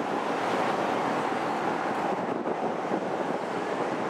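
Two turbofan engines of an RAAF E-7A Wedgetail, a Boeing 737-based jet, giving a steady rushing jet noise as it climbs away overhead.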